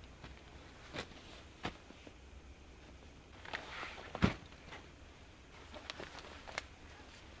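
Scattered light cracks and snaps, with a short rustle and then one louder thud a little past the middle.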